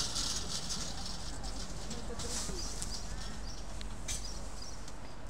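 City street ambience with faint talk from a queue of people. A short swell of hiss comes about two seconds in, and a sharp click near the end.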